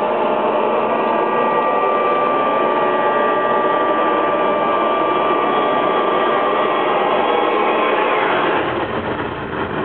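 Recorded dance soundtrack over the hall's speakers: a dense, steady wash of noise with a few held tones, thinning out about three-quarters of the way through.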